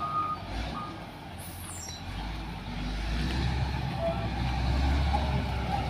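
Motor grader's diesel engine running, a low rumble that grows louder about two seconds in.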